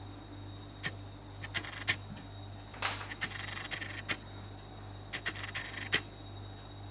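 Irregular clicks and taps in short clusters from a cat pawing at a refrigerator's water dispenser lever and its plastic surround.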